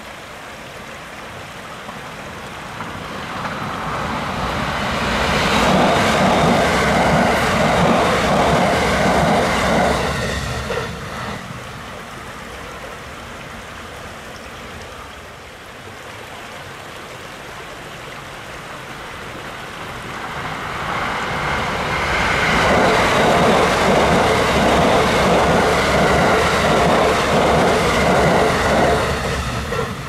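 Two trains passing on the Hokuriku Main Line, one after the other: each is a rushing run of wheel-on-rail noise that builds, holds for several seconds and fades. The first passes in the first third, the second swells up about twenty seconds in and cuts off near the end.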